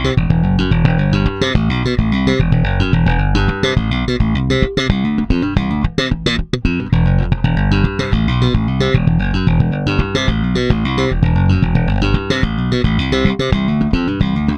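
Electric jazz bass, a Modern Vintage MVJ4-66, played slap style through an amp: a busy, percussive run of thumb slaps and popped strings over deep low notes, with a brief break about six seconds in.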